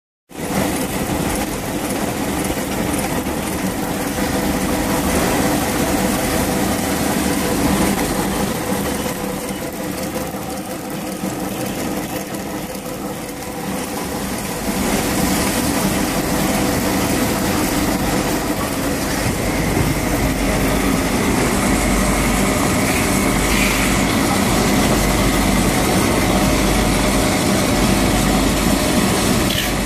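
Automatic cling-film wrapping and heat-shrink packaging machine running steadily, a continuous mechanical hum made of several steady tones with a low rumble. It gets louder from about halfway through.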